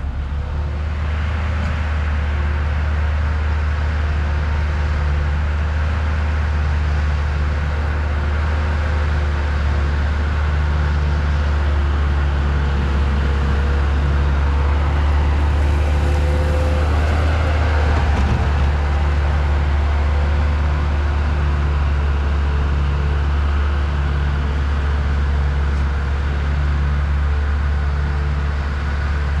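Heavy diesel engine of construction equipment running steadily with a deep, even drone.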